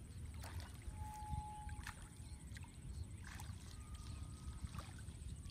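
Faint splashing of bare feet wading step by step through shallow water, with two brief thin whistling tones, one about a second in and one about four seconds in.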